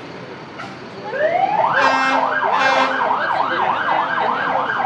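An emergency vehicle's siren winds up about a second in and goes straight into a fast yelp, about three cycles a second. Two short horn blasts sound over it near two seconds in.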